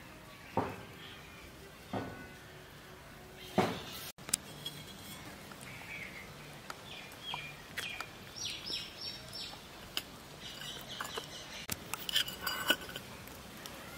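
Scattered sharp clinks and knocks of a steel bowl being handled, with birds chirping in short repeated calls in the middle.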